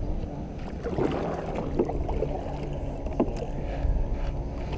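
A small boat being paddled along: paddle strokes in the water, with a couple of light knocks about two and three seconds in.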